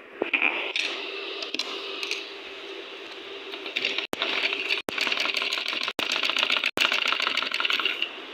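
Sewing machine stitching through cotton fabric, a rapid even clicking of the needle and feed from about four seconds in, broken by a few very short gaps. Before that come a few scattered clicks and knocks.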